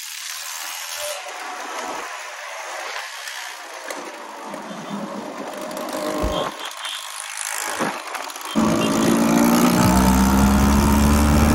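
Wind and road noise rushing over the microphone of a moving scooter. A few seconds before the end, a loud, buzzing small two-wheeler engine cuts in suddenly and revs up, rising in pitch.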